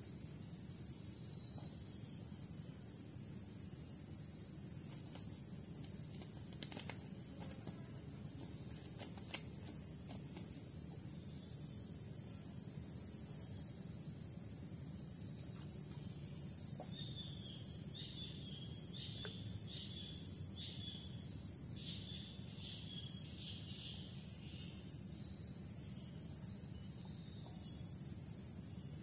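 Steady, unbroken high-pitched drone of a chorus of insects in mangroves. A run of quick chirps comes in for several seconds about two-thirds of the way through.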